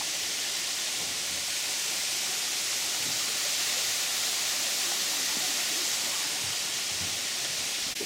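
Shallow creek running over rocks and small riffles, a steady rushing hiss of water that does not change.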